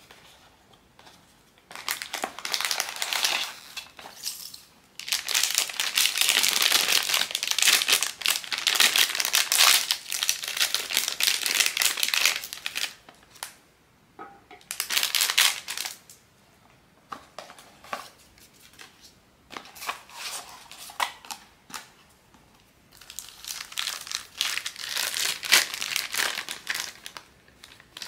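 Plastic wrapping of a blind-box figure crinkling and crackling as it is handled and unwrapped, in several long bouts, with a quieter stretch of small clicks and taps in the middle.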